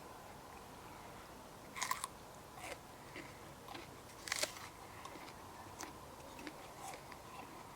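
Someone biting into raw vegetables: two loud crunching bites about two and a half seconds apart, each followed by softer crunches of chewing.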